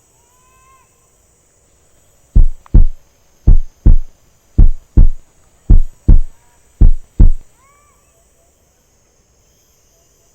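Heartbeat sound effect: five loud lub-dub double thumps at an even pace, about one beat a second. Faint short rising chirps sound before and after.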